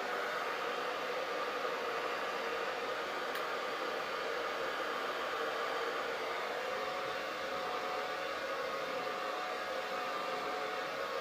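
Hair dryer running steadily: an even rush of air with a faint motor whine.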